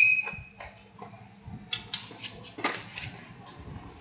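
A caged pet songbird gives a high, steady whistled call about half a second long, followed by scattered light clicks and rustles.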